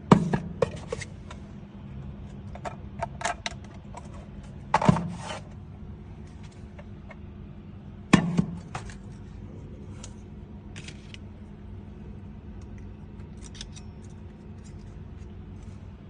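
Clicks and knocks of small hard parts being handled: three sharper knocks, at the start, about five seconds in and about eight seconds in, with lighter clicks between, over a steady low hum.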